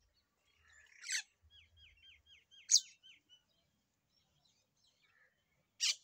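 Common myna calling: a loud, harsh note about a second in, then a quick run of short, falling chirps with another harsh note in the middle of them. A third harsh call comes near the end.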